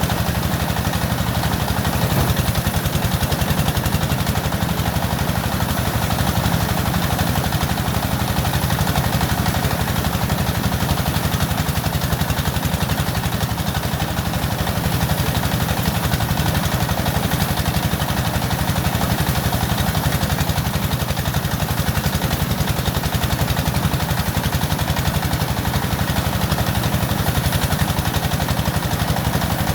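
An engine running steadily at constant speed, with a fast, even beat throughout.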